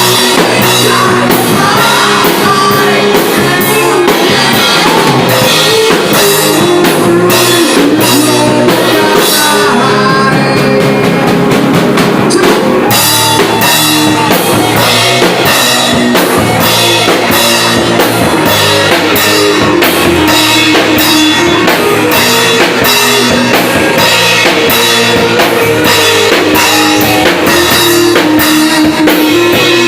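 Rock band playing loud in rehearsal: drum kit, electric guitar and bass. The cymbals drop out for a couple of seconds around ten seconds in, then the full beat comes back.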